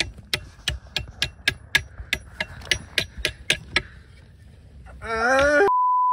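Evenly spaced sharp clicks, about four a second, for the first four seconds, then a brief voice sound, then a loud steady beep of the kind played with a TV test card, which cuts off suddenly.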